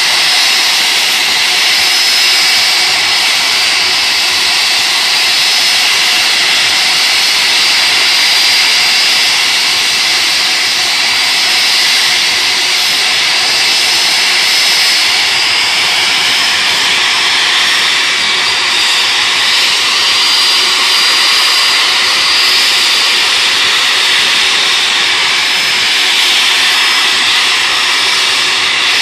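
Rolls-Royce RB211-524GT turbofan on a Boeing 747-400 running steadily during a ground engine run: a loud rush of air with a steady high whine over it.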